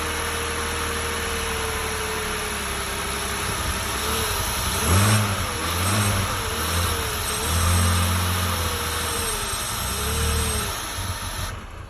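2003 BMW Z4 2.5i's 2.5-litre inline-six engine idling, then blipped up several times and let fall back, before the sound cuts off suddenly near the end. The engine carries a knocking noise that the owner calls horrible and cannot identify.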